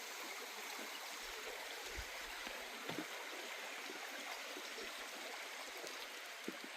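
Small stream or brook running with a steady rushing trickle, with a few soft low thuds.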